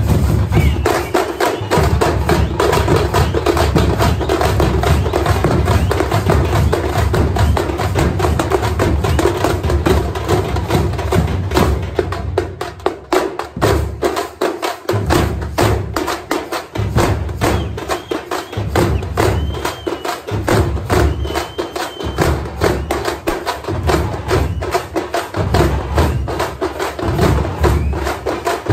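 Tamil festival drum ensemble: parai frame drums beaten rapidly with sticks by many players, over the deep beats of large barrel drums. About twelve seconds in, the deep drums drop out for a few seconds, then return in repeated pulsing phrases under the continuous stick rhythm.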